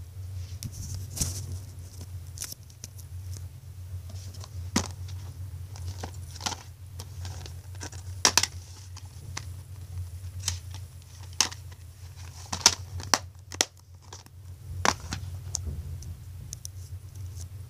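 DVD cases and packaging being handled: irregular sharp clicks and rustles of plastic and cardboard, over a steady low hum.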